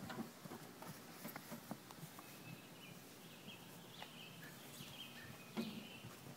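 Faint rustling and light knocks of a fleece seat cover being slid and smoothed down over a Jeep's rear seat back, with faint high chirping in the background from about two seconds in.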